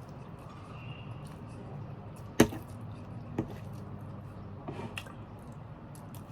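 Cutlery knocking against a dish while eating: one sharp loud knock about two and a half seconds in, a softer one a second later and a few faint ones after, over a steady low hum.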